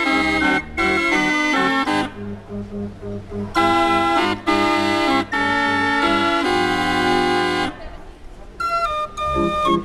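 Hand-cranked street barrel organ playing a tune on its pipes: held chords, with a quieter stretch about two seconds in, then a run of short, detached notes near the end.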